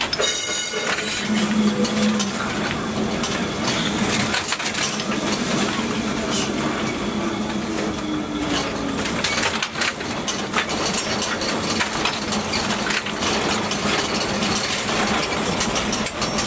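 Inside a Lisbon Remodelado tramcar on the move: the old body rattles and creaks, and the wheels click and grind over the street rails, over a steady low hum. A tone slides down in pitch about halfway through.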